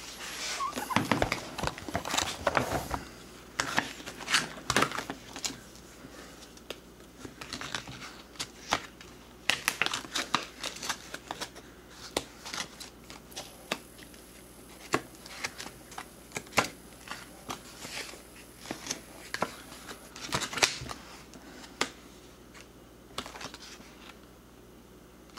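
Handling noise: irregular clicks, taps and rustling of hard objects being moved about. The noise is busiest in the first few seconds and again about ten and twenty seconds in, with quieter gaps between.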